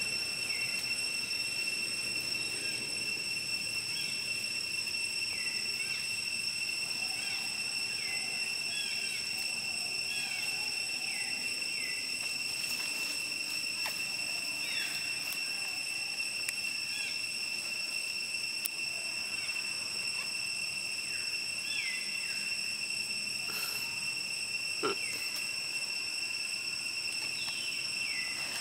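Insects droning in one steady high continuous tone, with short falling chirped calls now and then over it and a single sharp click near the end.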